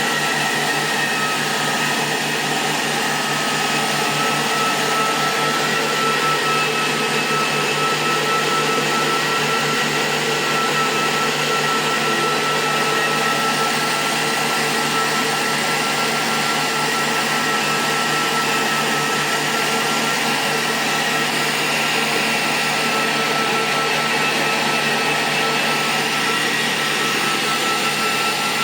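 Repaired 2000-watt IPL laser epilation device power supply running under test: a loud, steady whir with a constant high whine, unchanging throughout.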